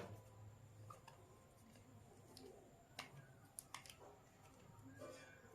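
Near silence, with a few faint clicks and a short light scrape from a screw being tightened into a wooden handle.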